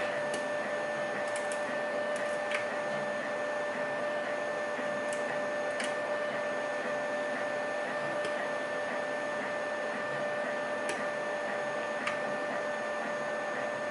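3D printer running: a steady whine of several held tones over a hiss, with occasional faint ticks.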